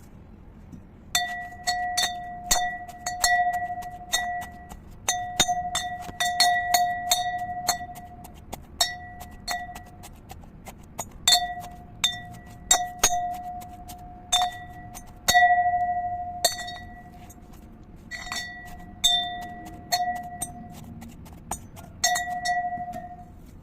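A glass being tapped again and again, in irregular runs of clinks. Each tap rings on briefly at the same bell-like pitch, with a couple of short pauses between runs.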